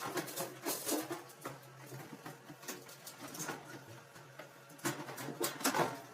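Irregular clicks, knocks and light squeaks of dryer panels and parts being handled and fitted back together, over a faint steady low hum. The loudest knocks come about a second in and again between five and six seconds in.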